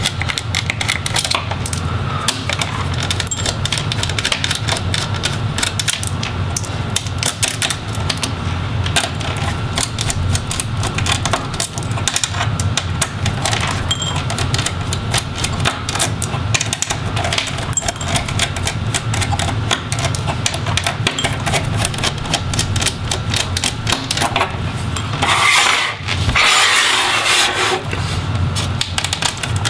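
Small Phillips screwdriver backing out the tiny hinge screws of a laptop display, with a close run of clicks and small metal parts clinking on the table. Near the end there is a louder scraping rustle as the display panel is turned around on the table.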